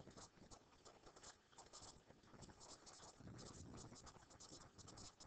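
Faint, irregular clicking and light scratching of a computer mouse being clicked and moved, with a soft low rustle a little past three seconds in.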